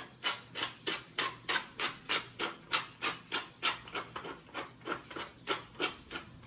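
Wooden pepper mill grinding black peppercorns, turned by hand in short twists, about three scratchy grinding strokes a second, a little softer for a moment past the middle.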